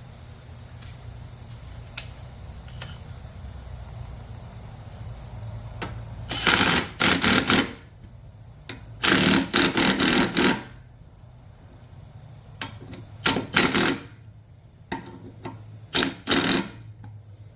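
Pneumatic impact wrench in four short bursts, each a rapid run of blows, running down the bolt that holds the mower's freshly sharpened blades on.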